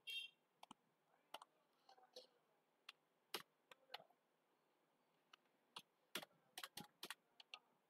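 Faint, scattered computer keyboard keystrokes, one key at a time, with a quicker run of several presses about six seconds in, as data is typed into an accounting program.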